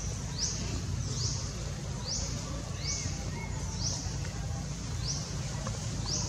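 A bird repeating a short, high call that rises in pitch and then levels off, about once a second, over a low steady rumble.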